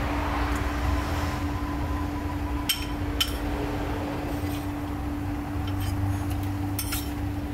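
A few light metal clinks of a ladle over the wok, a pair about three seconds in and another near the end, over a steady low hum.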